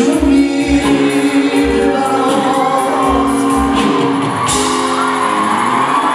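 Live Persian pop band playing, a male lead vocalist singing long held notes over bass, guitar, keyboard and low drum beats. A bright crash comes in about four and a half seconds in.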